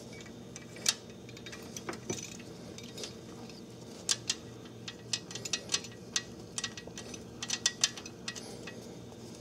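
Light metal clinks and clicks of a camshaft seal puller's parts being handled and fitted by hand: one click about a second in, then a string of quick clicks in the second half, over a steady low hum.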